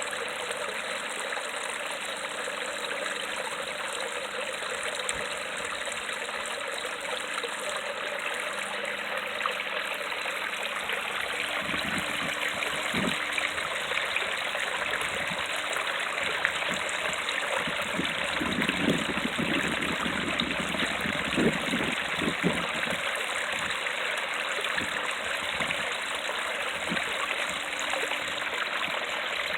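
Creek water falling over rocks in a small waterfall, a steady rushing splash. Midway through, deeper gurgles and plops come through now and then.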